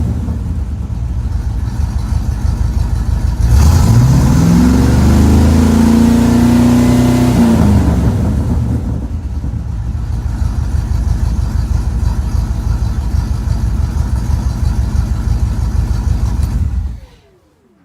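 V8 engine of an AC Cobra replica idling, revved up about three seconds in, held high for a few seconds, then dropping back to idle. The engine stops abruptly near the end.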